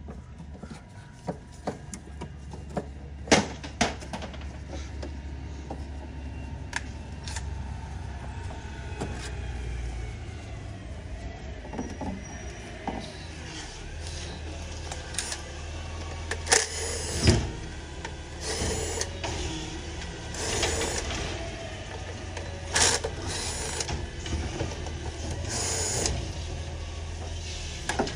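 Repeated short hisses of blown air, each lasting about half a second to a second, from about halfway through, clearing dirt off the top of the engine before the valve cover is pulled. They sit over a steady low hum, with scattered sharp clicks of tools earlier on.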